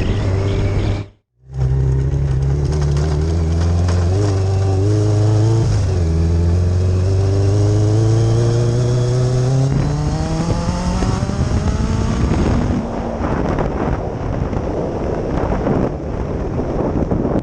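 Yamaha FJ1100's air-cooled inline-four engine under way, cutting out abruptly for a moment about a second in, then running steadily before its pitch climbs smoothly for several seconds as the bike accelerates. Near the end the engine note fades under a broad rushing wind noise on the microphone.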